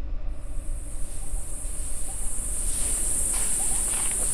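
Steady, high-pitched drone of insects in forest vegetation, fading in at the very start, over a constant low rumble.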